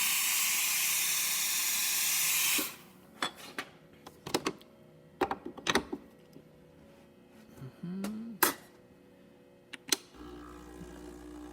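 Breville Oracle steam wand hissing steadily, shut off abruptly about two and a half seconds in. Then comes a string of sharp clicks and knocks, and near the end a low steady hum starts up.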